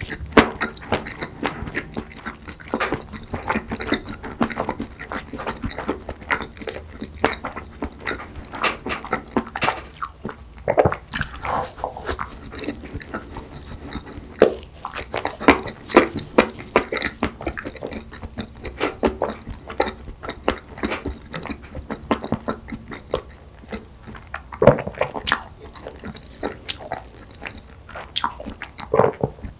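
Close-miked chewing of soft cake: a dense, irregular run of small mouth clicks and smacks, with a few louder bites.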